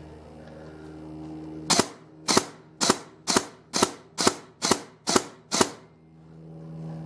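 Airsoft rifle firing nine single shots in a steady string, about two a second, each a sharp crack.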